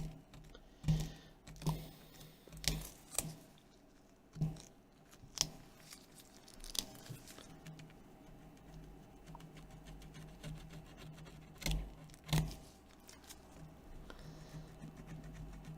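Plastic plectrum scraping old screen adhesive off a tablet's frame: short, irregular scraping strokes, about ten of them, with a quieter stretch in the middle.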